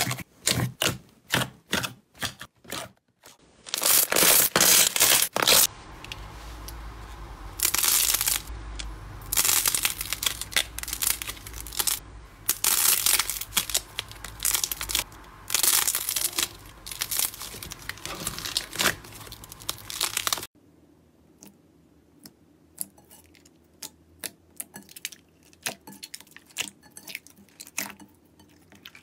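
Hands playing with slime. Quick wet pops and squelches come from a glossy slime being squished, then loud crackly tearing as a thick slime is stretched and pulled apart. About twenty seconds in, it turns to faint soft pops as clear slime is pressed in a bowl.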